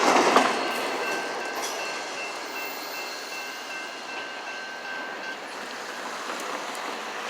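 CSX GP40-3 diesel locomotive running light, moving away after its horn, its engine and wheel rumble fading steadily.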